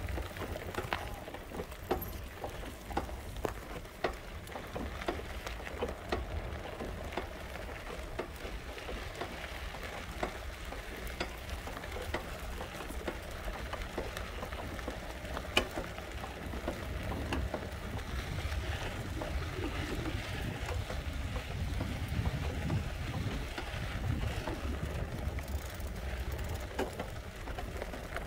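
Wheels rolling slowly over a gravel and sand road, a steady crackle of small crunches and pops, with a low rumble from wind or motion on the microphone.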